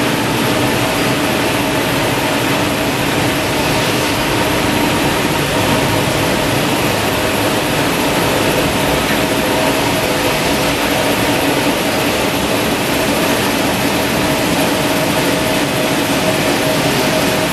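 FJ-P1092-3500LX high-speed maxi roll and JRT roll tissue rewinding line running: a steady, loud mechanical drone with a low, even hum and no distinct strokes.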